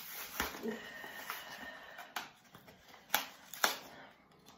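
Plastic blister packaging of a lip balm three-pack being handled and worked open by hand: crinkling with several sharp clicks and snaps, the loudest two close together near the end.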